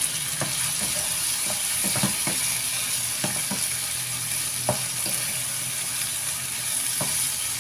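Stir-fry sizzling in a frying pan while a wooden spatula turns the egg tofu, sausage and shrimp. The steady sizzle is broken by about nine irregular scrapes and knocks of the spatula against the pan.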